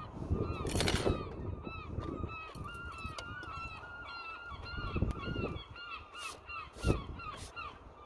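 A flock of geese honking, with short overlapping calls coming several times a second, over a low rumbling background. A few sudden loud bursts of noise cut across the calls, the loudest about a second in and again near seven seconds.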